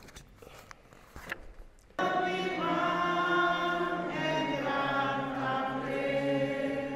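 A choir singing slow, sustained notes, starting abruptly about two seconds in after a quiet opening with a few faint clicks.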